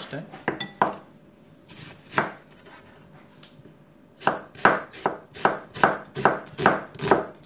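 Kitchen knife slicing a red onion on a bamboo cutting board: a few scattered cuts, a short pause, then from about halfway through a steady run of knife strikes on the board, about two and a half a second.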